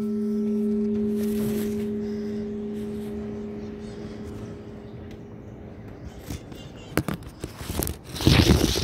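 Church bell's hum dying away after a stroke: two steady low tones that fade slowly over about six seconds. Near the end come a sharp knock and then a short, loud, noisy rumble.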